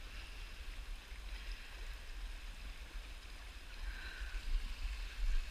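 Small stream trickling, a steady watery hiss, with a low rumble underneath.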